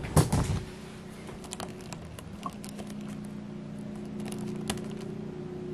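Small plastic clicks and taps as an action figure and a plastic blood-splatter accessory are handled and fitted, with a couple of louder knocks right at the start. A steady low hum runs underneath.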